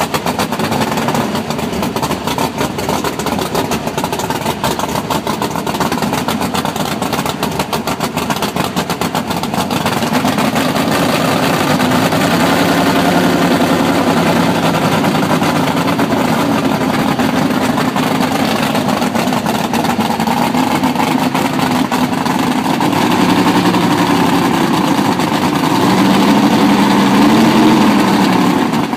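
600-cubic-inch V8 race engine running loud, idling with a rapid pulsing beat, then brought up to higher revs about ten seconds in. Near the end the revs rise and fall several times.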